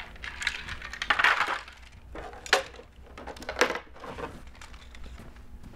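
Folding kayak frame parts being pulled apart and handled, as the bow piece comes off the keel: a scraping rattle about a second in, then sharp clicks near the middle and again about a second later.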